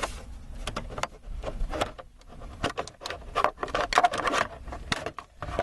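Plastic dashboard trim and air duct being handled and pulled loose: a string of irregular clicks, knocks and short scrapes of plastic.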